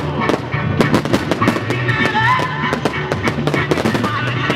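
Fireworks bursting in quick succession, a rapid run of bangs and crackling, over loud rock music with a steady beat.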